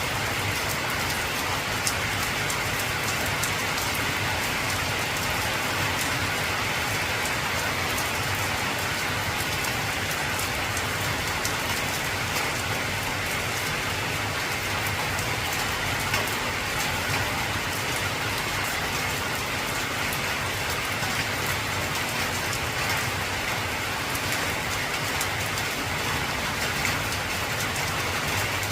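Heavy rain drumming steadily on an old corrugated zinc roof, a dense patter of drops.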